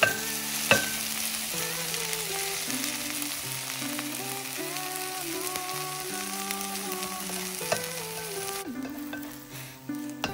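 Oatmeal kimchi-cheese chijimi pancake sizzling in oil in a nonstick electric pan, with a few sharp clicks of the spatula against the pan. The sizzling cuts off suddenly about three-quarters of the way through. Background music plays underneath.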